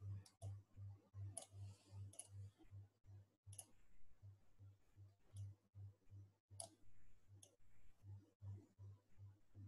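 Near silence with scattered faint sharp clicks, over a faint low pulsing about three times a second.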